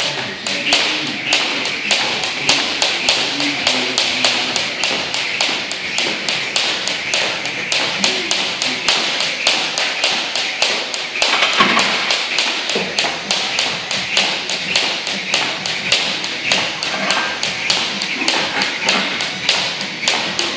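Fast, regular tapping strikes, about three a second, from an athlete's rapid repetitions during a timed workout.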